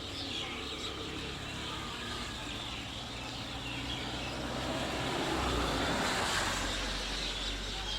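A passing vehicle that builds up to a peak about six seconds in and then eases off, with a low steady hum, while small birds keep chirping.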